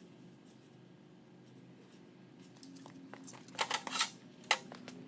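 Steady low hum, then from about halfway a flurry of sharp clicks and rattles, like metal parts being handled.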